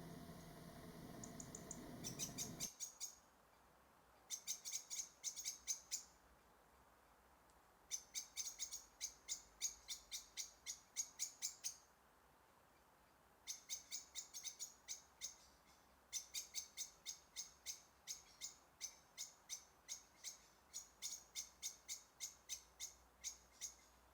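Goldcrests calling: runs of very high, thin notes, several a second, in bursts of a few seconds with short pauses between them. A low murmur of background noise stops abruptly near the start.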